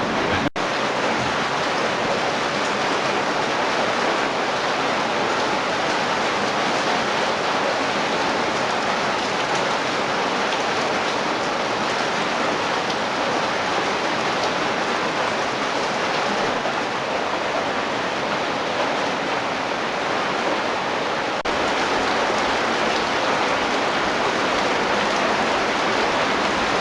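Steady rushing noise of wind and water from a motorboat moving along a river, briefly broken twice: about half a second in and near the end.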